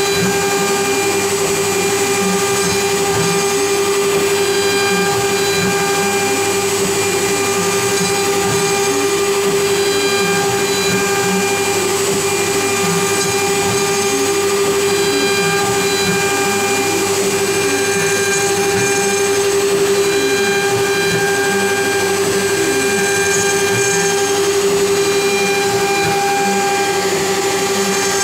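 CNC router's spindle cutting wood with a small bit on a 3D relief contour pass: a steady high whine, with lower tones gliding up and down again and again as the machine's axes move.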